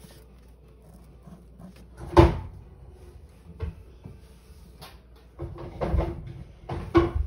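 Handling sounds: a few short knocks and thuds from a hand working a hardback dictionary and a pen. The loudest comes about two seconds in and a cluster follows near the end.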